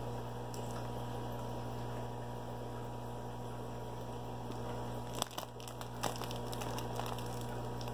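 Steady electrical mains hum, with a few brief rustles and clicks a little past the middle as a plastic bag of fish is handled in a cardboard shipping box.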